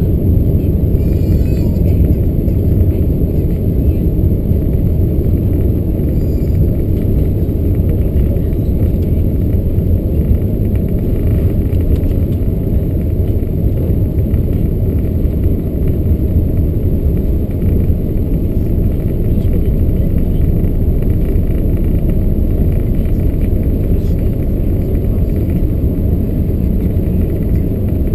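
Steady low rumble inside the cabin of an Airbus A380-861 taxiing onto the runway, its four Engine Alliance GP7200 turbofans running evenly with no spool-up.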